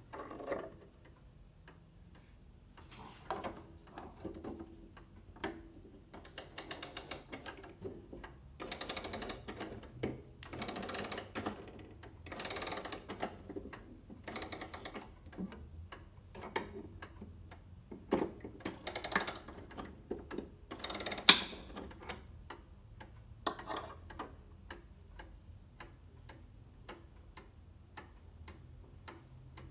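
Antique ogee wall clock ticking, with two long spells of rapid ratchet clicking as its movement is wound with a key; near the end the ticking goes on alone.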